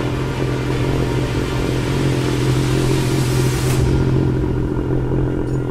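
An engine running steadily at a constant speed, a low even hum with no revving.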